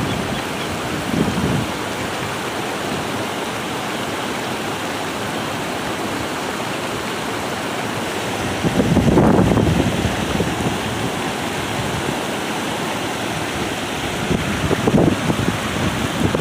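Steady rush of creek water running over rocks. About nine seconds in, a louder splash as a hand reaches into the water to grab the hooked yellowtail catfish, and a few shorter splashes near the end.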